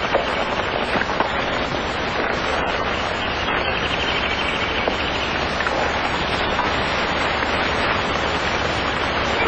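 Steady hiss and crackle of an old optical film soundtrack, with a few faint hoof clops near the start as a horse pulls up on a dirt yard.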